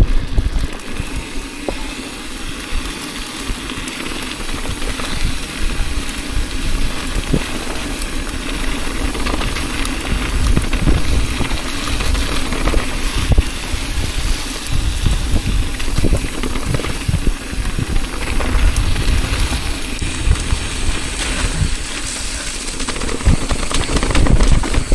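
Mountain bike riding over a rocky dirt trail: a continuous rush of tyre and wind noise with uneven low rumbling and scattered knocks and rattles from the bike.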